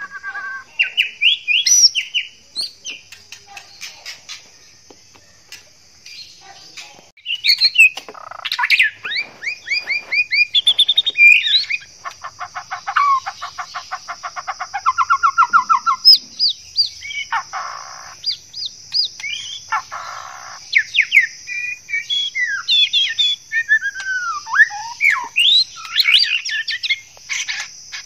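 Male white-rumped shama singing in breeding condition: a varied song of loud whistled notes and rising and falling phrases, with a long fast rattling trill in the middle, the courting song of a male in heat. A steady high-pitched hiss runs underneath.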